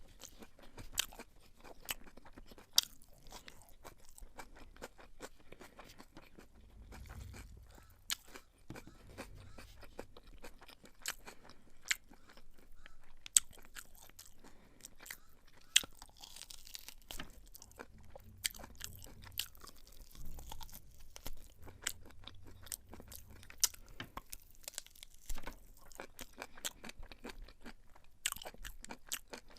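A person chewing a mouthful of beef pilau close to the microphone: irregular crunching and wet chewing with many sharp mouth clicks, a few of them much louder.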